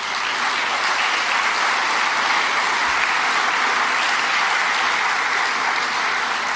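Audience applauding: steady, dense clapping that begins to fade near the end.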